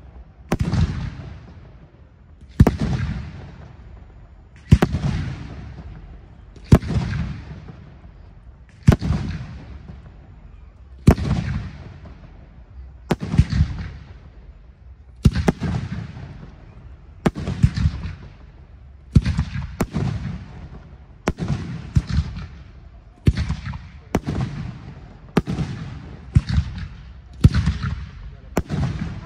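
Aerial firework shells bursting one after another, about every two seconds. Each sharp bang is followed by a rolling echo that fades out. In the last third the pace quickens to about one a second, with some bangs in quick pairs.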